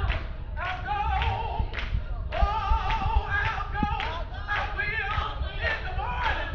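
A woman singing a gospel praise song into a handheld microphone, amplified through a PA, holding and bending long notes.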